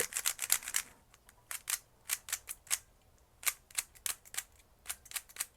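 Hello Kitty Rubik's Cube being turned by hand, its plastic layers clicking sharply in quick, irregular runs with short pauses. The turns are smooth, but the cube does not cut corners.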